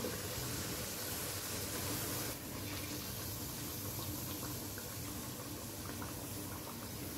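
Spiced fish-curry gravy simmering and bubbling in a pan, a steady hiss that steps down slightly a little after two seconds in.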